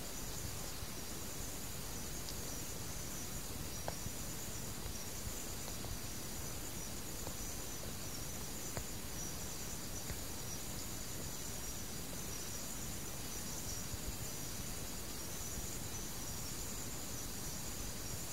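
Steady high-pitched insect chirring, like crickets, over a continuous background hiss, with a few faint clicks.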